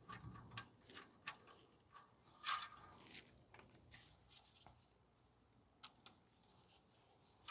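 Faint, irregular clicks and light metal taps from hand tools working clamps onto exhaust heat shields, with one louder click about two and a half seconds in, then a quieter stretch.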